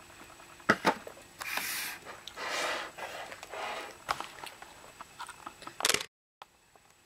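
Rustling and scraping handling noises with a few knocks. Near the end comes a sharp click and a brief break in the sound as the recording cuts.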